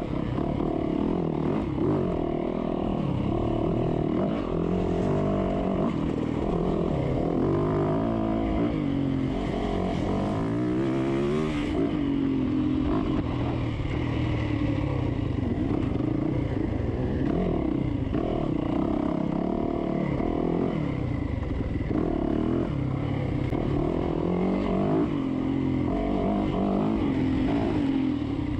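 Dirt bike engine under race throttle, revving up and down as the rider accelerates, backs off and shifts, with a run of quick rising revs about a third of the way in.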